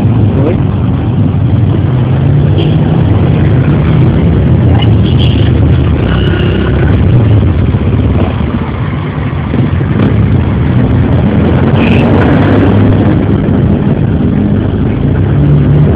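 Engines of trail dirt bikes and off-road 4x4s driving past on a gravel street, a steady loud drone with no let-up.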